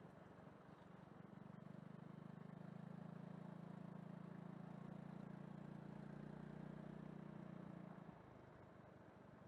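Faint, steady low hum of a vehicle engine, swelling after about a second and dropping back near the end.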